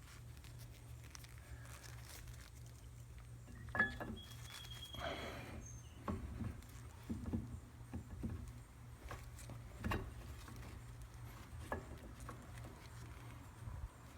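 Faint, scattered clicks and light knocks of new brake pads being slid into a four-piston Brembo caliper and lined up with the pin holes, over a low steady hum.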